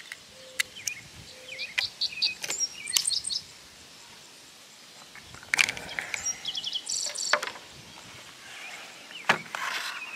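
Scattered sharp clicks and clacks as .243 cartridges are pressed into the Savage Axis II's detachable box magazine and the rifle and scope are handled, the loudest about halfway through and near the end. Small birds chirp in between.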